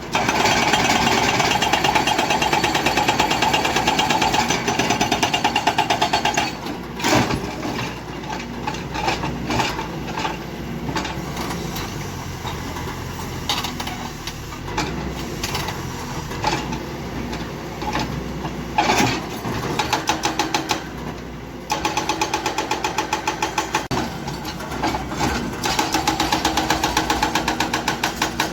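Hydraulic breaker on a Kobelco excavator hammering rock in rapid, even blows. After about six seconds it stops and the engine keeps running with scattered knocks and clanks, then the breaker starts hammering again for the last several seconds.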